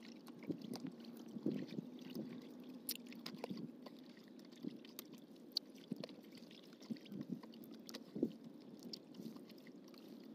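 Gill net being hauled in by hand over the side of a wooden canoe: quiet, scattered small taps and knocks.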